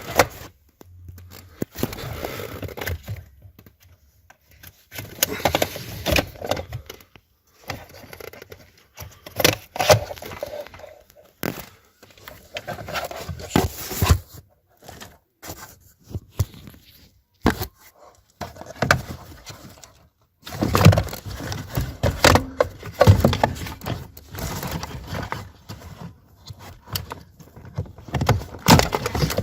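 Irregular clicks, knocks and scraping of hands and tools at work on small hard parts, in uneven bursts with short gaps between.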